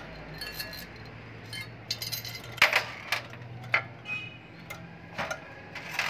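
Metal parts of a refrigerator compressor clinking and ringing as the pump-and-motor assembly is handled in its steel shell: a string of light metallic clinks, the loudest a little under three seconds in. A steady low hum runs underneath.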